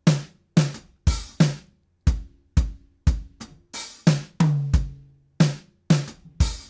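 A drum kit track of kick, snare and hi-hat playing a steady beat of about two hits a second, heard dry without compression. A cymbal rings out longer about four seconds in.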